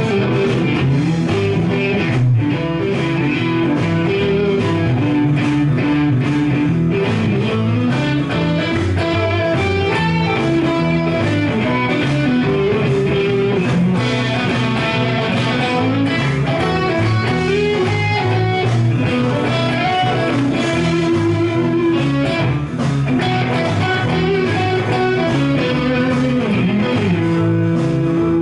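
Stratocaster-style electric guitar played through an Egnater amp, improvising bluesy lead lines with string bends.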